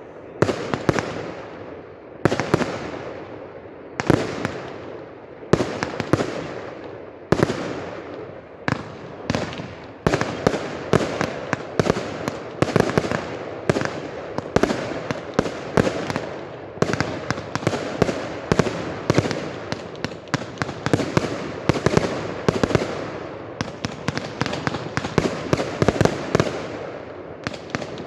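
Fireworks display with aerial shells bursting in loud bangs, one every second and a half or so. From about eight seconds in the bangs come thick and fast in a continuous barrage.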